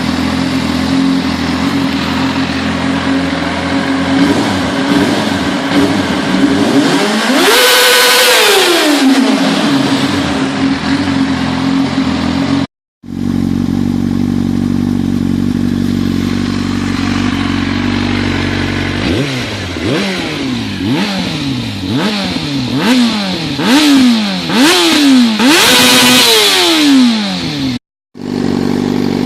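2003 Yamaha YZF-R6 inline-four motorcycle engine idling and being revved, heard as separate clips. A third of the way in it is revved once, rising and falling back to idle. After a short cut to silence it idles, then takes a string of about eight quick throttle blips, before another cut back to idle.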